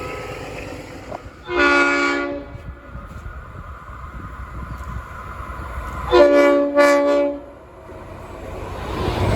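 Train horn sounding: one blast about a second and a half in, then two short blasts in quick succession about six seconds in, over the low rumble of a train.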